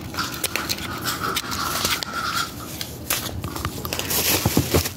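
Bubble wrap and plastic packaging being handled, rustling and crinkling with many sharp little clicks. A faint steady high whine sounds just after the start and stops about halfway.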